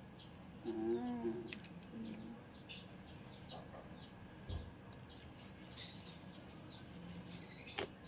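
A small bird chirping over and over, a short, high, falling chirp about three times a second. A faint voice is heard briefly about a second in.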